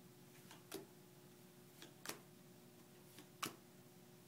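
Playing cards dealt one at a time onto a desk: three crisp taps about a second and a half apart, each with a softer tick just before it.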